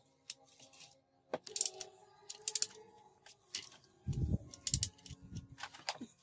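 Socket ratchet wrench clicking in short bursts as bolts inside a truck air compressor's crankcase are tightened, with light metal tool clinks. A few dull knocks of the heavy compressor body on the steel bench come about four seconds in.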